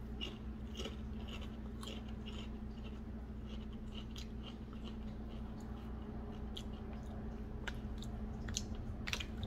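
Faint crunching of a Doritos tortilla chip being chewed with the mouth closed: a scattered series of small crisp crackles.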